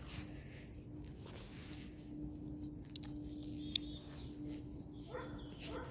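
Quiet outdoor background: a faint steady hum with a few light clicks and rustles.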